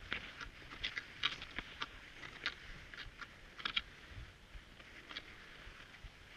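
Cross-country skis and ski poles on snow: irregular sharp crunches and clicks, several a second, over a faint steady hiss.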